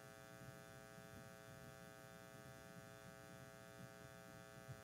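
Near silence: a faint, steady electrical hum with a buzzy edge.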